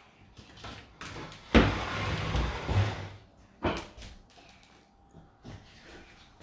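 Loose LEGO pieces being handled: a rustle lasting about a second and a half, then a sharp click, and a few lighter clicks after.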